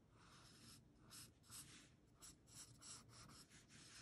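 Charcoal pencil scratching on paper in a series of short, faint drawing strokes, about three a second.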